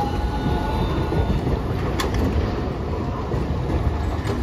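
Hiroshima Electric Railway Green Mover APEX articulated low-floor tram passing close by on a curve: a steady rumble of wheels on rails, with a sharp click about every two seconds and a faint whine near the start.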